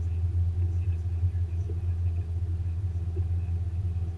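Steady low drone of a boat's engine running at a constant cruising speed, heard from the deck.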